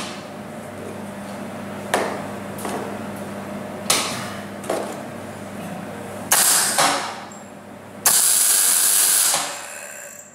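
Welding arc crackling and hissing in two short bursts about six and eight seconds in, the second lasting over a second: steel tube legs being tack-welded to a kettle grill's steel bowl. Before them, a few sharp metallic knocks over a low steady hum.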